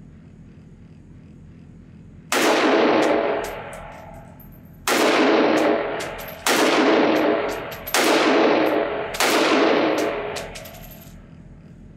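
Five semi-automatic rifle shots from a Nemo Arms Battle Light Rifle in 6mm ARC, fired at an uneven pace a second or two apart, each with a long ringing echo in an indoor range.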